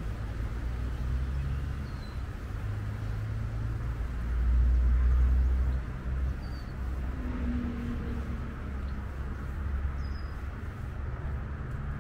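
Steady distant traffic noise with a low rumble that swells to its loudest about four seconds in and drops off quickly about two seconds later. A few brief high bird chirps come through, about two, six and ten seconds in.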